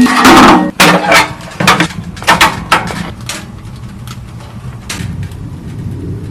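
A loud scraping or rustling burst, then a run of sharp, irregular knocks and clatters that thin out after about three seconds, over a low steady rumble.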